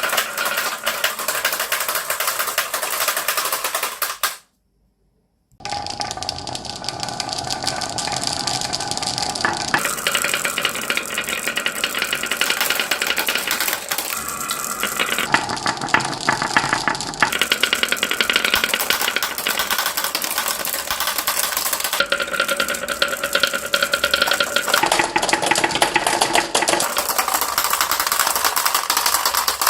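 Many marbles rolling and clattering down a marble run track, a dense, continuous rattle of clicks. It breaks off for about a second near the start, then comes back, its sound changing every few seconds.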